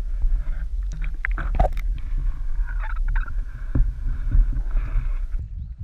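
Muffled underwater sound from a submerged camera: a steady low rumble of moving water with scattered knocks and clicks.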